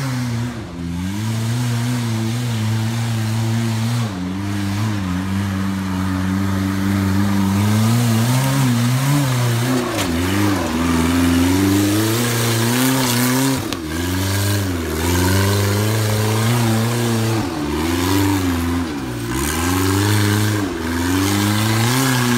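Four-cylinder rock bouncer buggy engine revving hard under load on a hill climb. The revs dip sharply and climb again several times as the throttle is lifted and reapplied.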